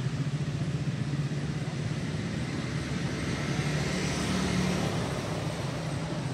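Steady low hum of a running engine with road traffic noise, swelling a little between about three and five seconds in.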